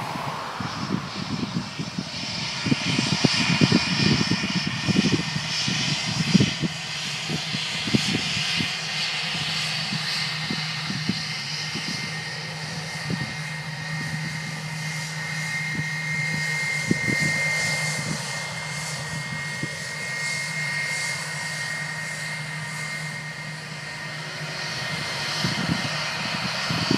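Airbus A320-232's two IAE V2527-A5 turbofans running at low taxi power as the airliner taxis, a steady high whine over a low drone. Irregular low thumps come through during the first several seconds.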